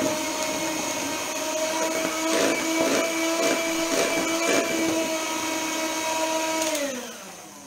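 Electric hand mixer running steadily with its beaters in thick cake batter, a whirring motor hum with a few knocks along the way. About seven seconds in it is switched off and winds down, its pitch falling away.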